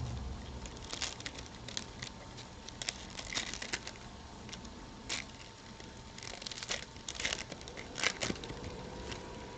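Trading cards and their plastic packaging being handled: irregular rustling, crinkling and small clicks, in clusters with brief lulls between.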